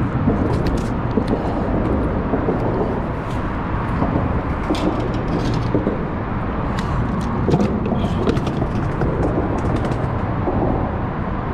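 Small clicks and rustles of hands working a fishing hook and jig, over a steady low rumbling background noise.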